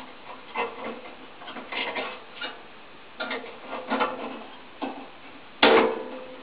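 Irregular metallic clicks and knocks from an old e.l.m. leblanc GLM 5 wall-mounted gas boiler's open casing and pipework, a dozen or so, uneven in spacing, with one louder knock about five and a half seconds in.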